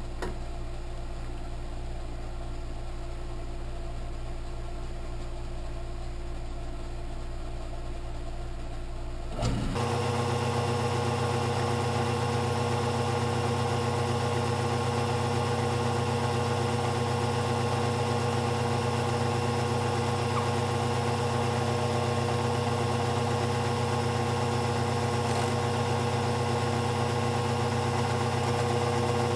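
Small benchtop machine tool's electric motor running with a steady hum. About nine and a half seconds in, the hum changes abruptly and gets louder, and runs on steadily at the new sound.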